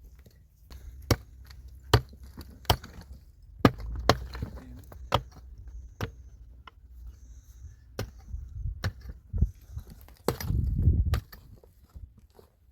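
Wood being chopped: a series of sharp, irregularly spaced strikes, with a longer low scraping or rumbling noise about ten seconds in.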